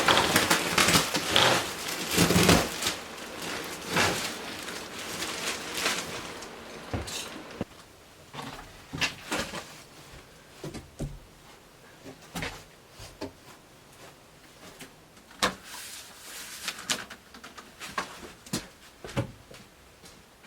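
Hammer tacker stapler and handling noise: dense rustling and knocking for the first several seconds, then scattered sharp hits at irregular spacing.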